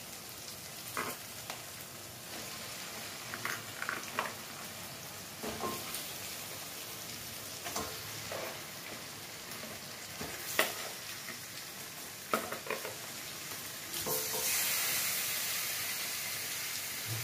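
Chicken pieces frying in onion-tomato spice masala in a kadai. A steady sizzle runs throughout, with sharp knocks of stirring against the pan every second or two. The sizzle turns louder about 14 seconds in.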